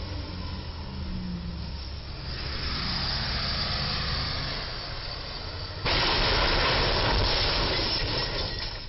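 Street traffic passing, then about six seconds in a sudden loud rasping noise that holds for about three seconds as a box truck's roof strikes the steel crash beam of a low railroad trestle and is torn open.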